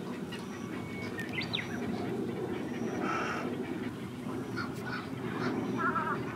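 Calls from a mixed heron colony of black-crowned night herons and egrets: a constant din of many birds, with short, sharper calls and chirps scattered over it. Near the end comes a quick run of wavering calls.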